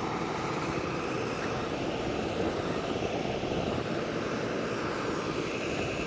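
Steady rushing noise of wind buffeting the microphone, even in level throughout.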